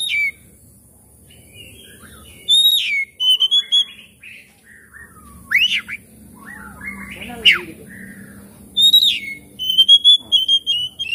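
Oriental magpie-robin singing: varied clear whistled phrases, some notes falling and some rising sharply, with a fast run of notes near the end.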